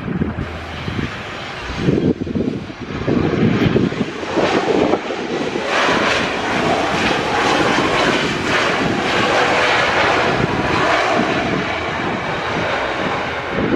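Airliner engines passing, a wide steady noise that builds over the first few seconds and stays loud, with strong wind buffeting the microphone.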